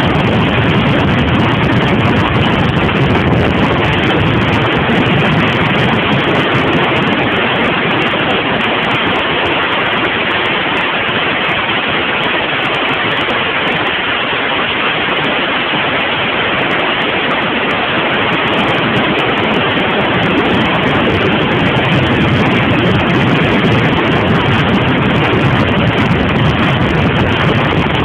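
Steady wind rush on the microphone of a camera mounted on a 2002 Suzuki TL1000R sport bike at highway speed, with the bike's engine and road noise under it.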